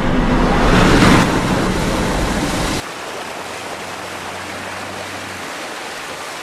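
A truck's tyres pushing through shallow floodwater: a steady rush and splash of water thrown off the wheels. It is loudest for the first three seconds, then cuts to a quieter, even rush.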